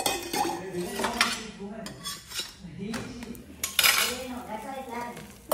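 Steel kitchen utensils clinking and scraping against a tawa griddle and steel pots while a flatbread cooks, with a few sharp metallic clinks, the loudest a little before four seconds in.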